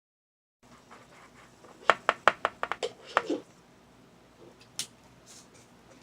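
Yogurt slime being squeezed and pulled by hand, giving a quick run of sharp sticky pops and clicks about two seconds in, then one more pop a second and a half later.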